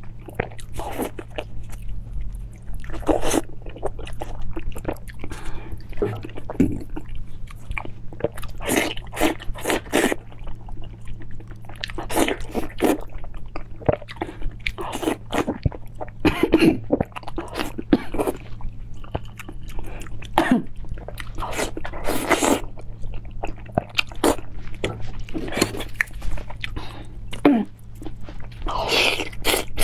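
Close-miked biting and chewing of a whole pale green squash: irregular wet crunches and mouth smacks over a steady low hum.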